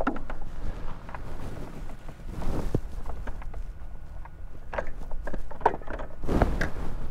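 Scattered knocks, clicks and brief splashy rustles of fishing gear being handled on a plastic kayak while a hooked snook is brought aboard, with a steady low wind rumble underneath. The busiest stretch of knocks comes near the end.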